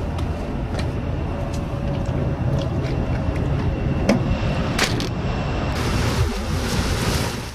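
Road and engine noise inside a moving van: a steady low rumble with a few sharp knocks or rattles, fading out near the end.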